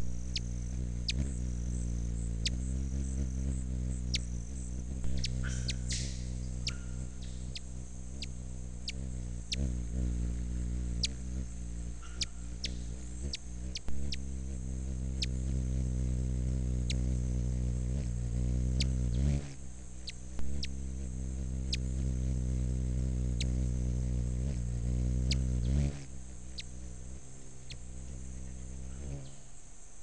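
Low, steady hum of a green-throated mango hummingbird's wings close to the microphone, shifting and gliding in pitch a few times and dying away near the end. Scattered sharp clicks and a steady high insect whine run alongside.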